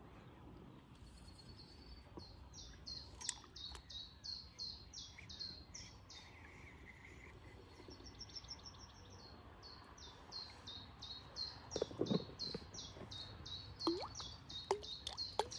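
A songbird repeating short, high chirps, about four a second, in two long runs. In the second half, a few small splashes and plops on the water surface.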